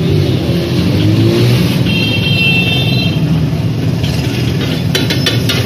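Engine of a passing road vehicle running with a steady low rumble, rising in pitch about half a second in, with a brief high steady tone about two seconds in. Near the end a metal spatula clicks on the iron griddle.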